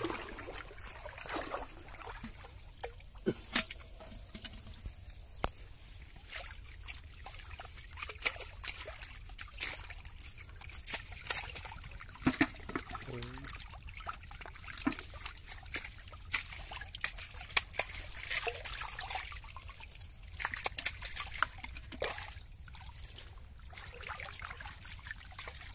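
Hands sloshing and splashing through shallow muddy water in a gathered fishing net, with water trickling and dribbling, as fish are picked out by hand. Irregular sharp splashes and clicks.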